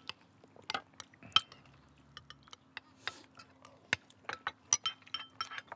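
Metal spoons clinking and scraping against bowls and pots as rice is mixed into jjajang sauce and eaten: irregular light clinks, a sharper one about a second and a half in and another about four seconds in.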